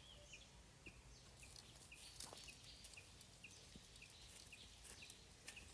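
Faint outdoor ambience with a small animal chirping steadily, one short high chirp about three times a second, and a few faint clicks.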